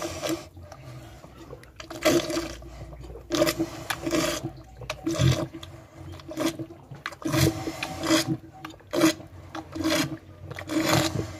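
A cow slurping and sucking up watery bran mash from a rubber bucket, in irregular wet gulps about once a second.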